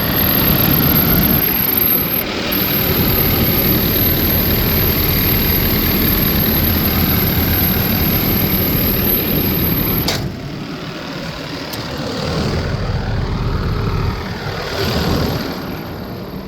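New Holland C245 track skid steer's diesel engine running at high throttle, then dropping to a lower, quieter run about ten seconds in, with a brief rise and fall near the end.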